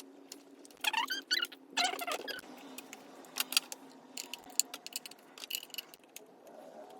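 Irregular small clicks, knocks and rattles of plastic parts being handled as batteries are fitted into an RC truck and its remote.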